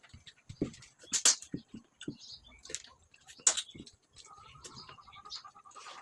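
Close-up eating sounds: mouth clicks, smacks and chewing of rice and fried fish, with two sharper crisp smacks standing out. About two-thirds through, a rapid high chirping trill starts and runs on.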